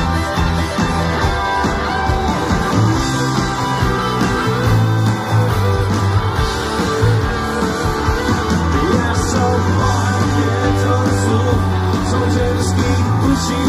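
Rock band playing live through a PA: electric guitars, bass and drums with a singer, heard from among the audience.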